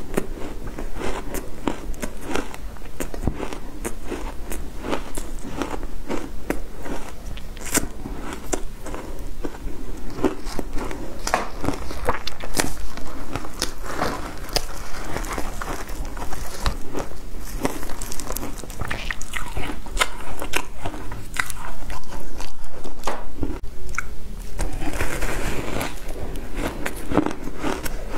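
Close-miked biting and crunching of shaved ice, a rapid run of crisp cracks and crackles. Gloved hands squeeze and scrape the packed ice in the bowl between bites.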